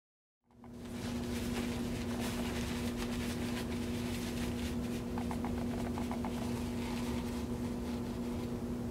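A steady low hum, with crinkling and rustling as a dry paper towel is wadded up and pushed into a clear plastic cup.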